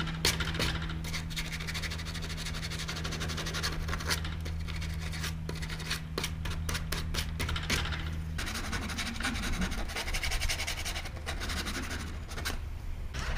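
Vinyl wrap being rubbed and scraped down with a squeegee along the edge of a box truck's panel: dense, irregular scratching strokes. A steady low hum underneath stops about two-thirds of the way in.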